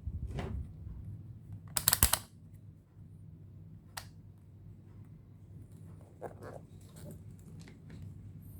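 Small clicks and handling noise from a multimeter and its test probes being readied to measure a speaker battery's voltage: a quick run of rattling clicks about two seconds in, one sharp click around four seconds, then a few softer taps, over a steady low hum.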